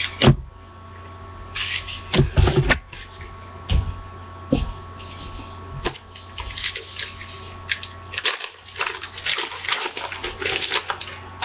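Crinkling and rustling of a trading-card pack and cards being handled, in irregular bursts with a few knocks, over a steady electrical hum.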